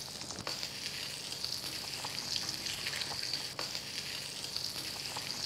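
Thick red onion slices sizzling in hot bacon fat in a frying pan: a steady high hiss scattered with small pops.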